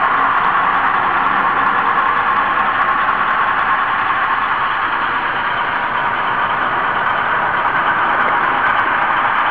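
Steady whirring and hiss picked up on board an N-scale model train's camera car as it rolls along the track, with no clear rail-joint clicks.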